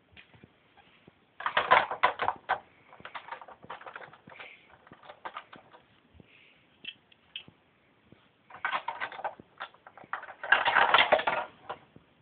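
Plastic Lego pieces clattering and clicking as they are handled, in three dense rattling bursts with scattered single clicks between them.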